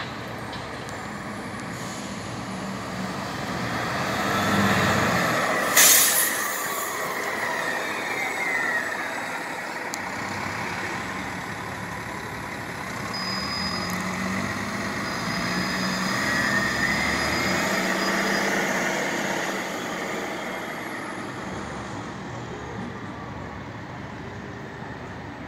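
Articulated hybrid-electric transit bus driving past and pulling away, its drive running steadily with faint whining tones that slide in pitch. A short, sharp hiss of air about six seconds in is the loudest moment.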